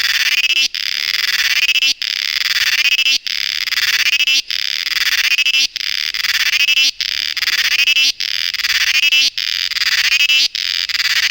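An insect calling loudly in a high, buzzing song, repeated in phrases about one and a quarter seconds long, each cut off by a brief break.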